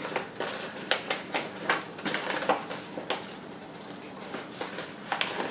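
Paper handling: a large manila envelope being opened and rummaged through, with short, irregular crackles and rustles that thin out a little over halfway through.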